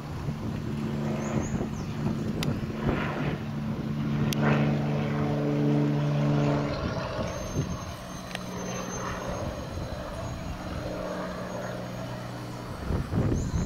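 An engine running steadily, its hum dropping to a lower pitch about seven seconds in.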